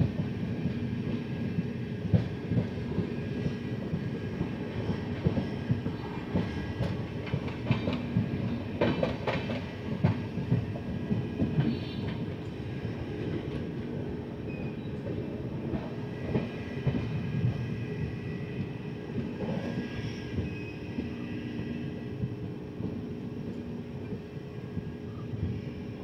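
Mangala Lakshadweep Express passenger coaches running along the track, heard from an open coach door: a steady rumble of wheels on rail with scattered clacks, clustered about a third of the way in, as the wheels cross rail joints. It eases off a little towards the end.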